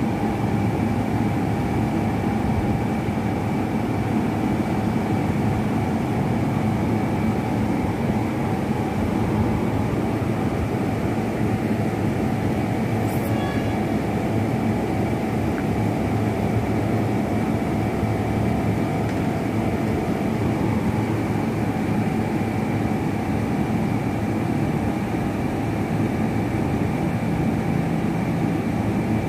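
Noisy machinery running with a steady drone, made of several held tones at an unchanging level.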